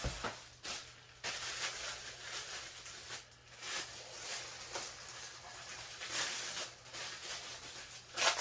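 Plastic packaging rustling and crinkling as the fan's parts are unwrapped and handled, in irregular bursts, with a sharper knock near the end.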